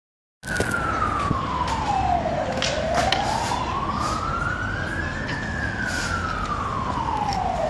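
An emergency vehicle's siren wailing slowly. It starts about half a second in, falls in pitch over about two seconds, rises over about three, then falls again.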